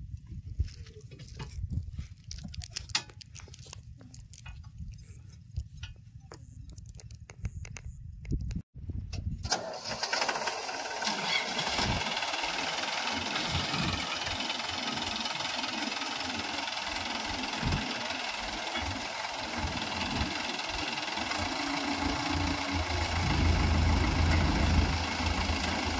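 Diesel tractor engines, a Preet 6049 and a Samman: at first a low running note with scattered clicks, then after a short break the engines work hard and loud under load as one tractor tows the other, stuck in mud. The low engine note swells louder near the end.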